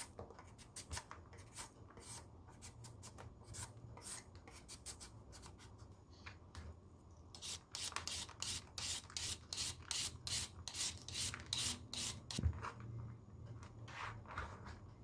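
A hand shredder rasping through raw carrot and green papaya in repeated scraping strokes. The strokes are light and uneven at first, then from about halfway they come faster and louder, about three a second, before slowing near the end.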